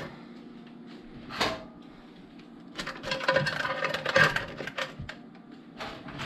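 Live blue crabs being packed into a steaming pot, their shells and claws clicking and scraping against the perforated metal steamer rack and the pot's sides: a single click about a second and a half in, then a busier run of clicks and scrapes in the middle.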